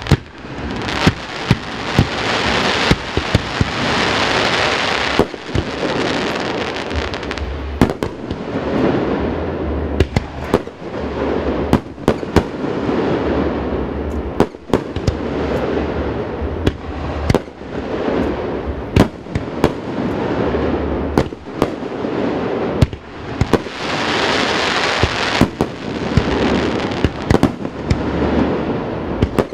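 A fireworks display: aerial shells bursting in a run of sharp bangs, about one or two a second, over a continuous crackling hiss. The booms echo off the surrounding mountains.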